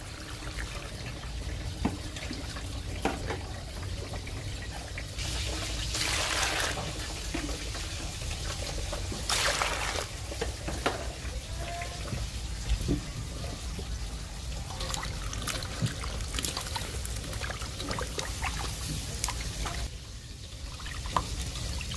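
Water pouring and splashing over pickled cucumbers in a stainless steel bowl as they are rinsed. Two louder pours come about six and nine seconds in, and there are scattered light knocks throughout.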